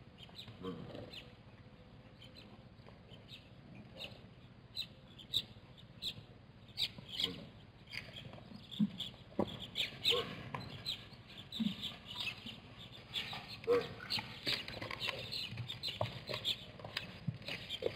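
Small birds giving short, irregular chirps that come thicker in the second half, with a few brief low knocks mixed in.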